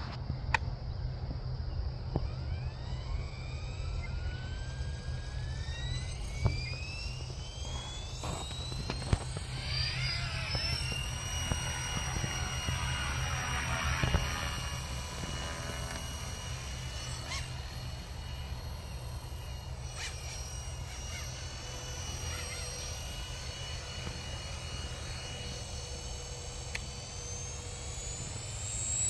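Small RC helicopter spooling up: its high whine climbs steadily in pitch over the first ten seconds or so, then holds at a steady high pitch, wavering as the helicopter flies about, over a steady low rumble.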